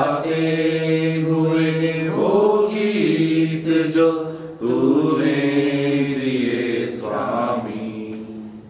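Closing bars of a Hindi church hymn: long held notes that change about every two seconds, the last one fading out near the end.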